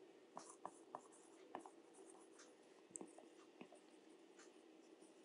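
Faint light taps and scratches of a stylus writing on a tablet screen: scattered small ticks, mostly in the first few seconds, over near-silent room tone.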